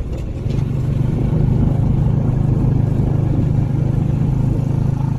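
Engine of a motor vehicle running steadily while driving along a road, with road noise; it picks up slightly about half a second in.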